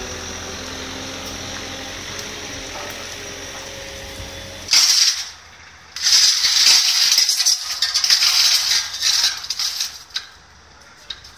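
A vehicle engine idling steadily at the boat trailer. About five seconds in it gives way to a few seconds of loud, harsh metallic rattling and scraping at the steel boat cradle as its supports are adjusted under the hull.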